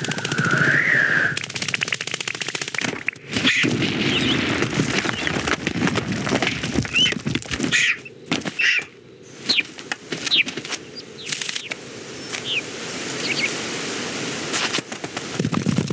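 Film sound effects of a bird attack: dense, rapid fluttering wing flaps and clattering, with short high bird chirps and squawks breaking in several times. There is a brief lull about eight seconds in.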